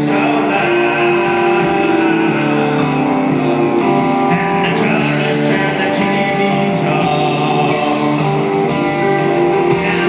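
Live rock band playing at a steady level, guitars to the fore.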